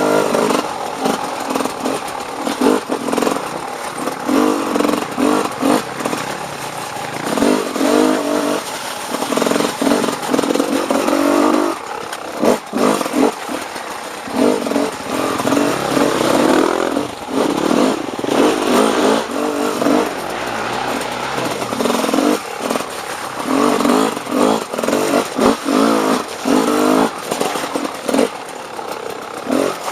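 Dirt bike engine being ridden off-road, its revs rising and falling constantly as the throttle is worked on and off.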